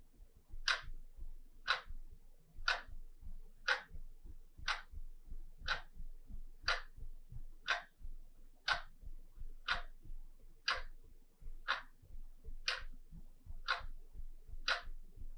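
Wall clock ticking steadily, one crisp tick a second.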